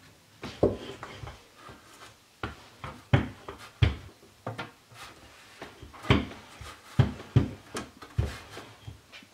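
Cut-out cookie dough being handled: irregular soft knocks and taps, one or two a second. Heart shapes are lifted off a wooden board and laid down on a paper-lined baking tray.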